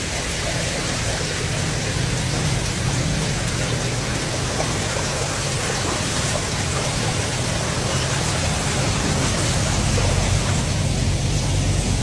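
Steady rushing noise of water, heavy rain or floodwater, even throughout with no single event standing out.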